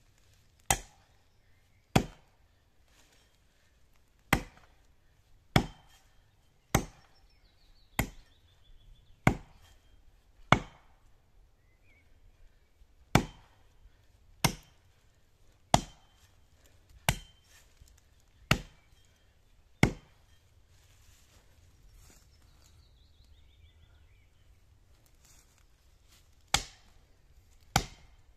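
Double-bit axe chopping into the trunk of a standing pine: sharp single strikes about every 1.3 seconds. After some fourteen blows there is a pause of several seconds, and the strikes resume near the end.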